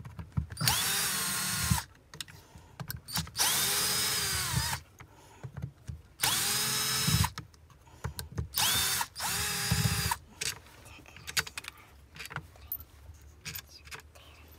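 Cordless drill-driver run in five short bursts, each spinning up and then holding a steady pitch as it backs out bolts on a Wagner Control Pro paint sprayer's pump. Small clicks of tool handling come between the runs and after them.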